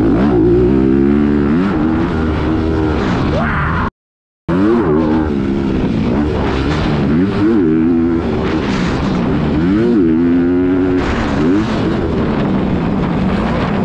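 Motocross bike engine heard from on board, revving up and dropping back again and again as the rider works the throttle around the track. The sound cuts out completely for about half a second around four seconds in.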